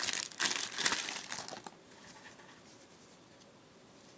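Packaging crinkling and tearing as it is cut and pulled open with a knife, stopping about a second and a half in.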